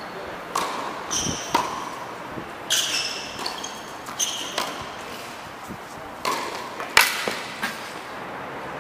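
Tennis rally on a hard court: a tennis ball being struck by rackets and bouncing, about ten sharp, irregularly spaced hits and bounces, some with a short high ring, the loudest a little before the end.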